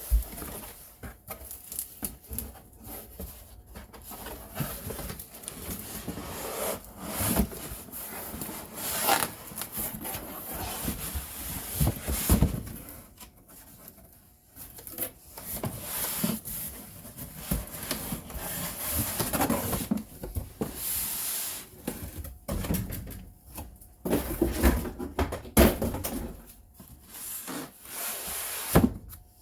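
A cardboard box being opened and handled: irregular rubbing and scraping of cardboard and packaging, with scattered knocks.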